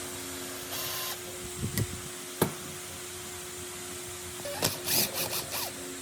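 Workshop handling noises over a steady hum: a short hiss about a second in, a single sharp knock a little later, then a quick cluster of clicks and scrapes near the end.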